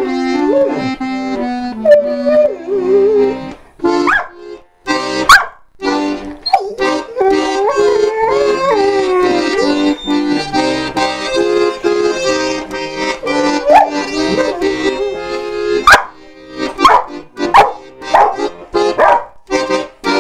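Accordion playing sustained chords while a Rottweiler howls along in long wavering notes that slide up and down. Near the end the playing breaks into a run of short sharp sounds.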